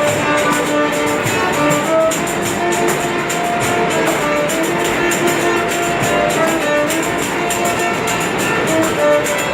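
Instrumental music without singing: a melody of held notes over plucked strings that sound like guitar.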